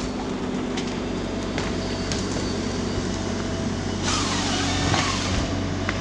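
John Deere 753G harvester's diesel engine running steadily, with scattered clicks. About four seconds in, a burst of hiss with a falling whine rises over it for a second or so.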